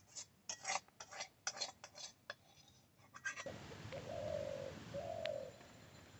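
A metal utensil clinking and scraping against dishes in quick, irregular strokes. After a sudden cut, a dove coos twice.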